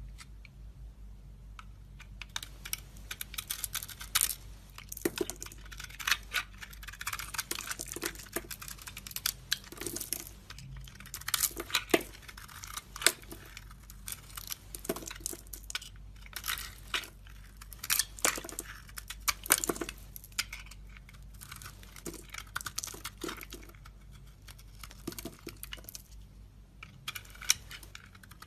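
A blade cutting into a bar of soap: irregular crisp crunching and scraping clicks, starting about two seconds in and going on in quick clusters.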